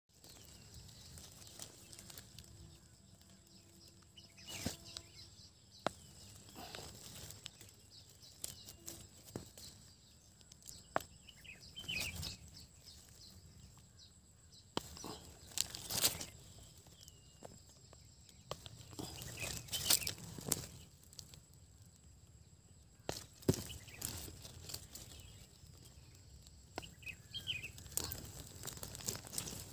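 Dry leaves and twigs rustling and crackling in irregular bursts as a hand pushes through forest-floor undergrowth and picks wild mushrooms, with a few short bird chirps.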